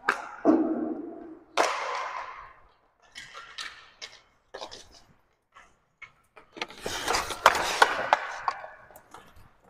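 Roller hockey play on a concrete rink: scattered clacks of sticks and puck, a sharp impact about a second and a half in that rings out in the arena, and near the end a busy scramble of stick clacks and skate wheels scraping as players crowd the net.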